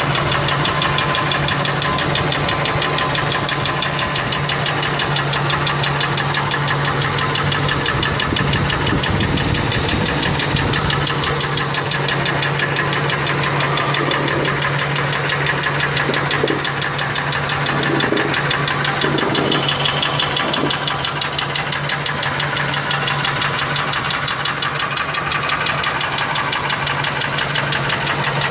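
Ford F-150's 4.6-litre two-valve V8 running steadily with an even, rhythmic knock. The owner has ruled out the lash adjusters and suspects a worn rod bearing, though to him it sounds as if it comes from the clutch.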